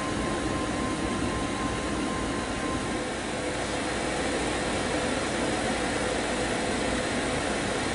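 Vibration test table running steadily, shaking the access point horizontally: an even mechanical noise with a faint steady tone through the first three seconds or so.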